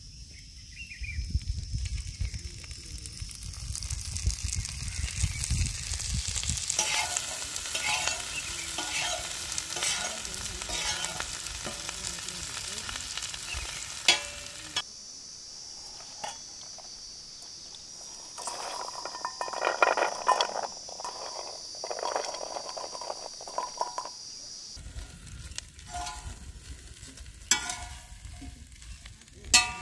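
Whole prawns frying in mustard oil on a hot iron tawa, sizzling steadily, with repeated scraping strokes as they are stirred and turned, and a few sharp clicks.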